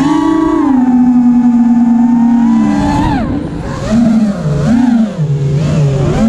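FPV quadcopter's brushless motors and propellers whining under throttle, pitch held steady at first, then dropping and surging up and down several times as the throttle is worked.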